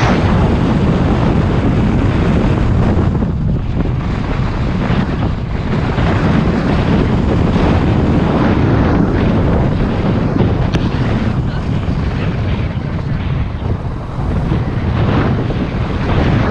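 Wind rushing and buffeting over a camera microphone on a moving car, over the rumble of the car driving along a road.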